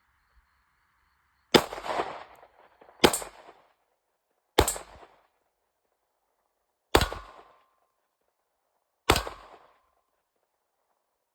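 Five single shots from a Glock 19 9mm pistol at an uneven pace, about one and a half to two and a half seconds apart, each trailing off in a short echo.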